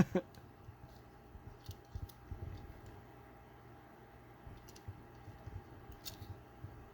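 Faint, scattered clicks and light taps of a small diecast toy car being handled, over a faint steady hum.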